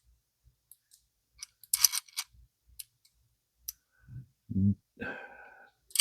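Small AAA-battery electric screwdriver running slowly in a short burst about two seconds in, with scattered clicks from its mechanism and a dull thump about four and a half seconds in.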